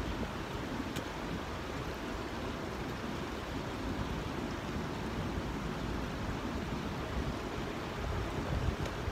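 Steady rush of sea water and wind, with a low rumble of wind on the microphone.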